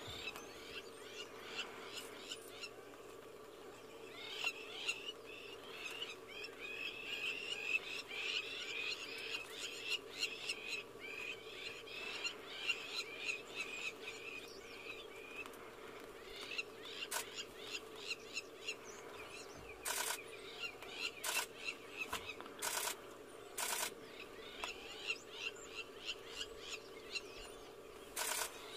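Crowned lapwings giving rapid, repeated alarm calls as they mob a perched tawny eagle, in two long runs with a lull between. Short bursts of camera shutter clicks come several times in the second half, over a low steady hum.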